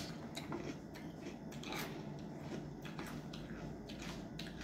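A child eating marshmallow cereal with milk: a spoon clicking in the bowl and crunchy chewing, heard as a string of faint, irregular clicks and crunches.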